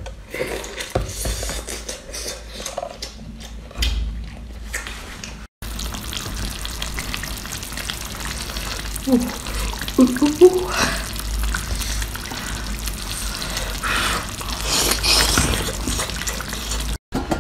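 Close-up wet eating sounds: slurping and chewing on lobster meat, then sucking and chewing sea snails pulled from their shells after a brief break about five seconds in.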